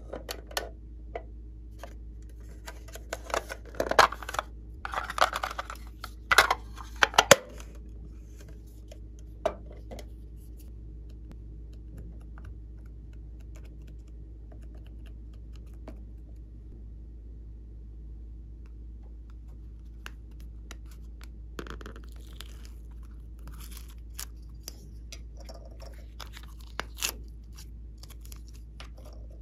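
Hands handling slime add-ins and plastic containers. A cluster of sharp clicks, crackles and crunches comes a few seconds in, then a few scattered taps near the end, over a steady low hum.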